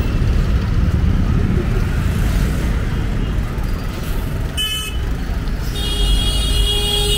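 Busy street traffic: a steady rumble of engines, with a brief horn toot about four and a half seconds in and a longer horn sounding from about six seconds on.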